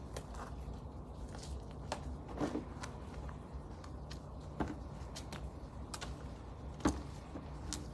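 Hand-weeding of brick paving: scattered rustles and light clicks as weeds are pulled from the joints and dropped into a plastic basin, with three sharper ticks spread through, over a low steady background rumble.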